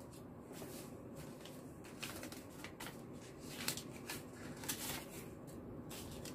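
Paper rustling and crinkling: a red paper lai see envelope being opened by hand and a banknote slid out, in light, irregular crackles.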